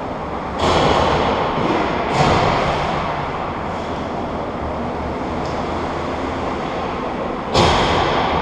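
Ice rink ambience: a steady low rumble with a hum underneath. It swells suddenly three times into a louder rush of noise, about half a second in, about two seconds in and near the end, each fading over about a second.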